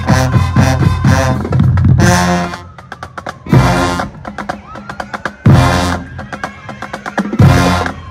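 High school marching band playing: brass and drums together at first, then the brass hits loud short chords about every two seconds while the drumline taps out a rhythm between them.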